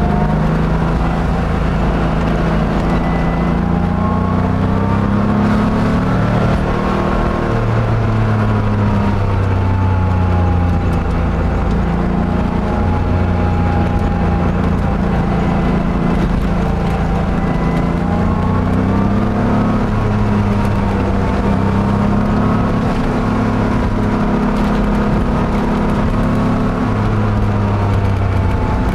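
Porsche 911 flat-six engine running under way, heard from inside the car, its note rising and falling slowly as the throttle and revs change through the bends.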